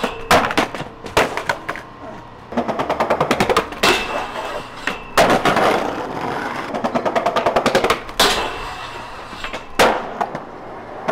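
Skateboard sounds. Two runs of rapid, even clacking, about ten a second, come from the wheels rolling over the sidewalk's joints. They are broken by several sharp pops and slams of the board and trucks against the metal handrail and the ground.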